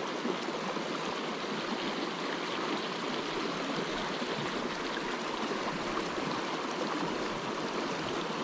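Small mountain creek flowing and babbling steadily over rocks.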